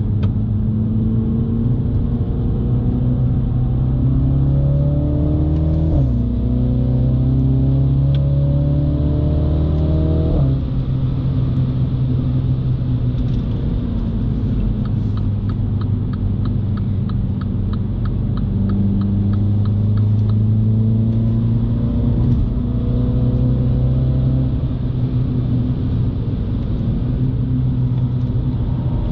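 2018 MINI John Cooper Works' turbocharged four-cylinder engine under hard acceleration, heard inside the cabin. The revs climb and drop sharply twice, about 6 and 10 seconds in, then rise and fall through the corners.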